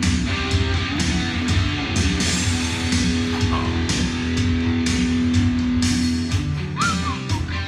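Rock music with electric guitar, bass and drums, played from a vinyl record on a turntable.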